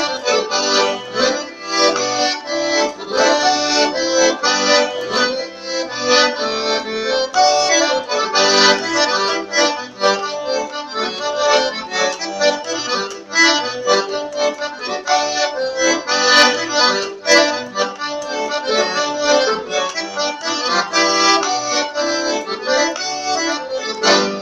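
Accordion played solo: a quick, busy tune with melody notes changing rapidly over sustained accompanying chords.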